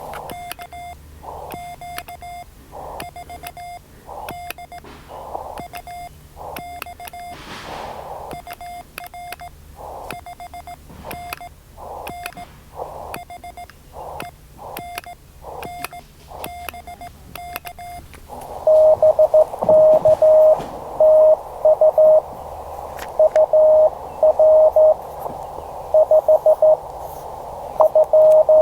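Morse code (CW) from a ham radio transceiver, keyed dots and dashes. For most of the stretch a tone with bursts of receiver hiss between the characters; then, about 18 seconds in, a louder, slightly lower CW tone over steady band hiss, another station's signal being received.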